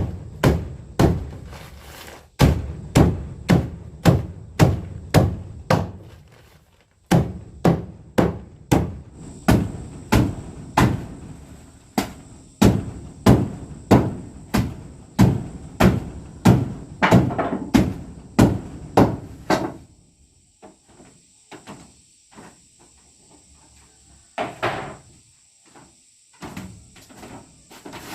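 Repeated heavy blows, about two a second, in long runs with brief pauses, as of something being struck over and over. They stop about twenty seconds in, and a few scattered knocks follow.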